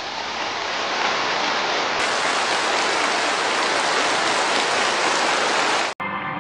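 Applause from a large crowd: dense, steady clapping that swells over the first second and cuts off abruptly near the end.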